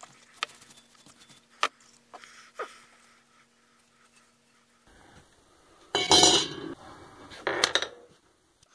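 A Baldor motor's sheet-metal fan shroud being handled. First come a few light metallic clinks as it is worked off the motor. Later come two louder, longer clattering scrapes of the metal shroud against a stone bench top.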